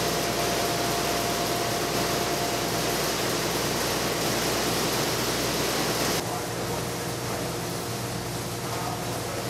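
Food-processing machinery running in a fish-paste factory: a steady whooshing noise with a low hum while a mixing bowl tips its paste into a trough. About six seconds in, the sound drops abruptly to a quieter, duller steady hum.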